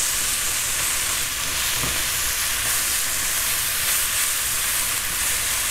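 Chopped onions and sliced mushrooms sizzling steadily in a frying pan as they sauté.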